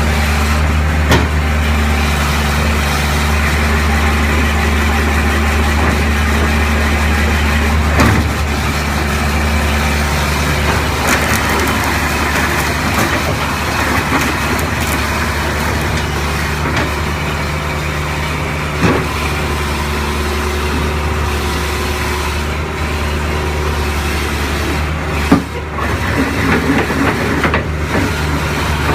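Kubota KH400-7 excavator's diesel engine running at a steady speed, with a few sharp clunks over it, the loudest near the end.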